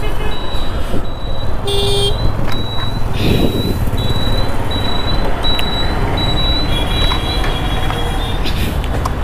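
Motor scooter riding through traffic: steady engine and wind rumble with road traffic around, a short horn toot about two seconds in, and a high beep repeating on and off through most of the ride.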